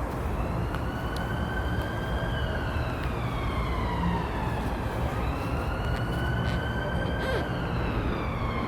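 A distant emergency-vehicle siren wailing, its pitch slowly rising and falling in a cycle of about five seconds, over a steady low rumble.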